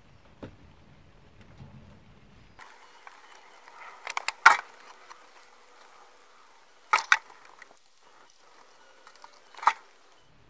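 A few sharp clicks and knocks, as of small hard objects being handled: a short cluster ending in the loudest one about four and a half seconds in, a quick pair about seven seconds in, and a single one near the end.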